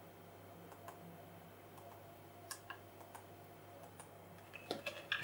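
Faint keystrokes on the Oric Nova 64's keyboard as a command to load a demo from disk is typed: a few single key clicks spaced out, then a quicker run of them near the end.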